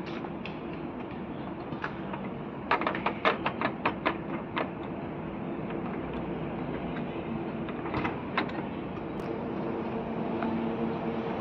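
A quick run of about ten sharp plastic clicks and clacks over two seconds, then two more a few seconds later, as a toddler works the knobs and turning pieces of a playground activity panel, over a steady background hum.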